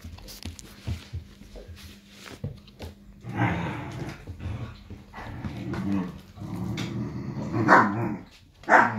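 Irish Wolfhound puppies growling in play, with two short sharp yelps near the end.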